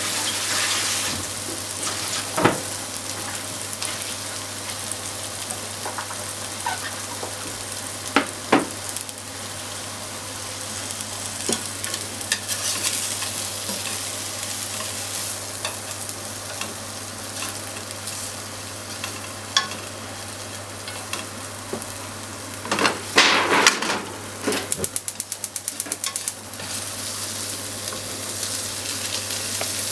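Salmon pieces sizzling in oil in a non-stick frying pan, with sharp clacks now and then as long wooden cooking chopsticks turn them against the pan. Near the end a fast run of even ticks lasts about two seconds.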